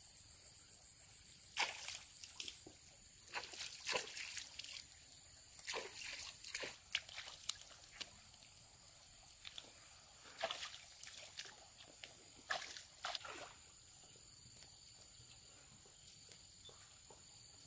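Irregular small splashes and sloshes of shallow stream water, scattered over the first two thirds and thinning out near the end, over a steady high hiss.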